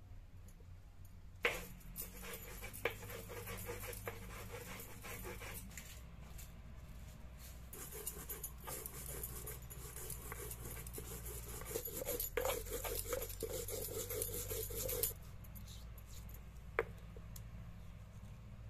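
Stone muller scraped back and forth over a flat grinding stone (sil-batta), grinding a wet spice paste: a continuous gritty scraping that begins with a sharp knock about a second and a half in and stops abruptly about three seconds before the end. A single click follows shortly after it stops.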